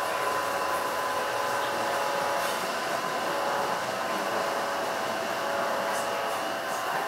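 Passenger train running, heard from inside the carriage: a steady rolling noise with a high whine held through it.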